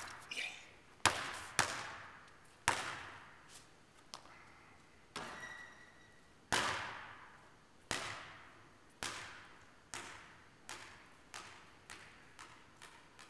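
Basketball bouncing on an indoor gym floor, each hit echoing in the hall: a few dribbles, then a louder bang about six and a half seconds in, followed by bounces that come faster and softer as the loose ball settles.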